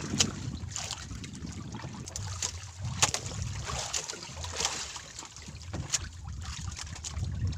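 Wind buffeting the microphone and water lapping against a small wooden outrigger boat, with a few sharp clicks and taps from the fishing line and gear being handled, the loudest about three seconds in.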